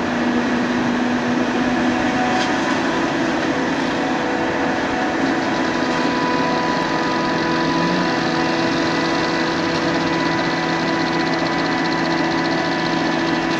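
Claas Jaguar self-propelled forage harvester running under load while chopping maize: a steady engine drone with several constant whining tones over a rushing noise.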